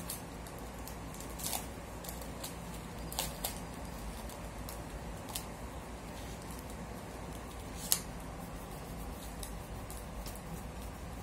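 Paper-craft handling: a few short, crisp clicks and rustles of paper and tools scattered over several seconds, the sharpest one about eight seconds in.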